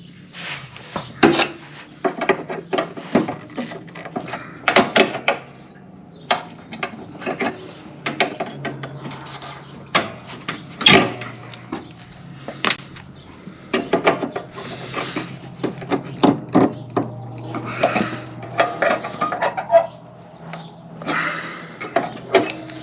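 Steel linkage parts and hand tools on a John Deere L120 mower deck clinking, clicking and knocking irregularly as pins are pulled and a lift-linkage plate is worked loose.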